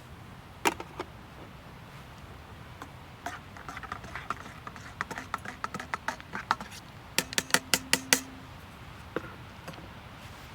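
Small hard objects being handled: irregular light clicks and clatter, then a quick run of six sharp clicks about seven seconds in.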